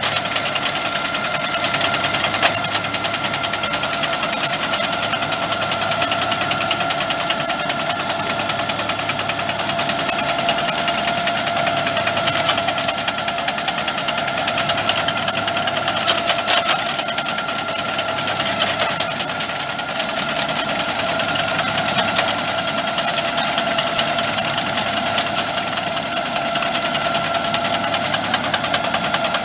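Mense RP 8L clearing shear on a Rigitrac SKH95 tractor's boom cutting through brush and saplings: the tractor engine and hydraulics run steadily with a steady whine, over a rapid clatter from the cutting head.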